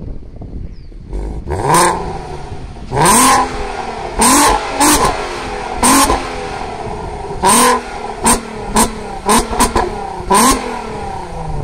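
Volkswagen Golf R32 Mk5's 3.2-litre VR6 idling, then revved repeatedly at a standstill, about a dozen sharp blips each falling back to idle, several quick short ones near the end. It runs through an aftermarket exhaust: KWE headers, test pipes in place of the catalytic converters, a middle muffler and the stock valved rear section.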